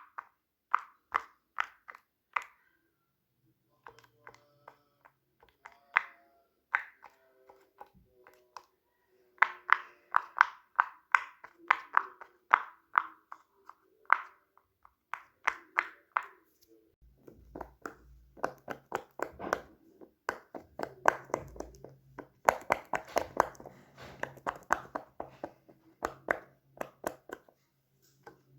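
Plastic fidget toys clicked and snapped by hand: a series of sharp clicks, spaced out at first. About halfway through comes a fast, dense run of clicks over a low steady hum.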